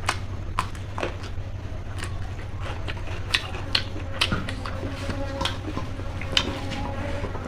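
Close-miked mouth sounds of someone eating chicken curry with rice: chewing with frequent, irregular wet smacks and clicks, over a steady low hum.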